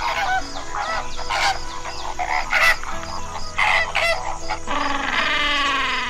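Greater flamingos calling, a run of short, nasal honks from several birds, over background music with a steady beat. Near the end a Humboldt penguin's braying call starts, a long, fast-pulsed bray.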